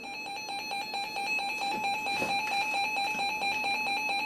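Electronic emergency alert tone: a steady, buzzy single-pitch alarm tone with a rapid even pulsing, sounding between weather radio warning messages.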